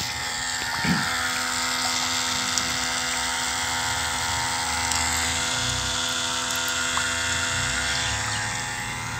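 Homemade water pump driven by a 12-volt 775 DC motor, running with a steady high-pitched whine, with water splashing from its outlet pipe.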